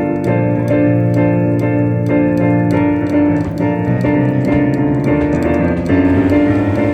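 Background music: piano or electric piano playing sustained chords over a steady pulse.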